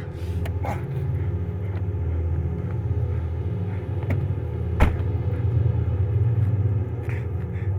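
Steady low rumble of a car engine, with a single sharp click a little past halfway.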